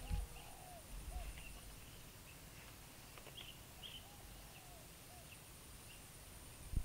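Faint outdoor ambience with birds calling: a few short arching notes and scattered high chirps. There are soft low thuds right at the start and about a second in.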